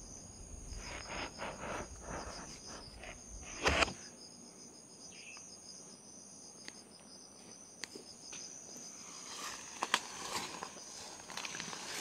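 Insects trilling steadily in a high, rapidly pulsing drone, with light rustling of leaves and brush. The loudest rustle comes about four seconds in and more follow near the end.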